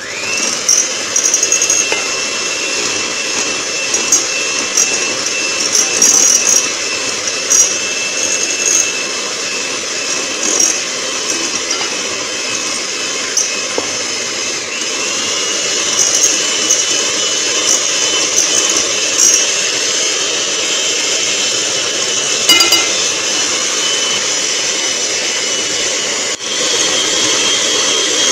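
Electric hand mixer running steadily, its twin beaters whipping egg whites as icing sugar is added gradually for a meringue-style glaze. The motor whine steps up in pitch about halfway through and again near the end, with a brief clatter of beaters against the bowl about three-quarters of the way in.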